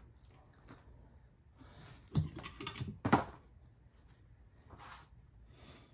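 Screwdrivers prying a golf cart tire's bead over a steel rim: scattered scrapes and a few sharp knocks of tool on rim and rubber, the loudest two a little before and about halfway.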